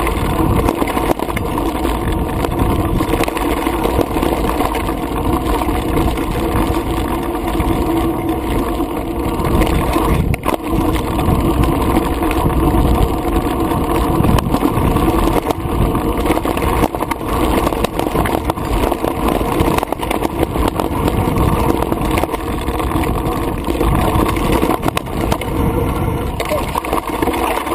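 Mountain bike (a 2010 Specialized Stumpjumper Comp) descending a rough dirt trail, heard through a GoPro camera's housing: a steady rumble of tyres on dirt and rock, with the bike rattling and knocking over bumps.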